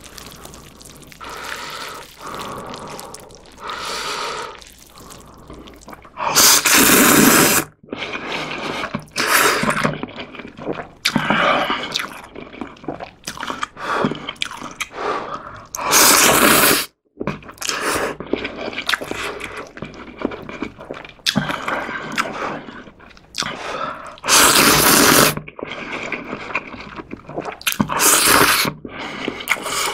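Instant ramyeon noodles being slurped in several loud bursts, each about a second long, with wet chewing sounds between them.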